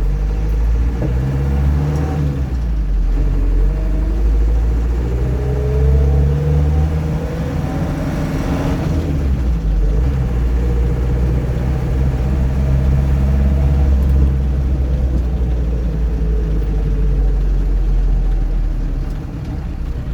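Land Rover Series III engine running under way on a test drive, its revs climbing and dropping several times.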